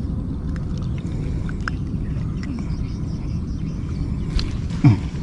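Steady low rumble, with a few faint clicks as a hook is worked out of a red tilapia's mouth by hand. Near the end comes a brief sound that drops in pitch, the loudest thing heard.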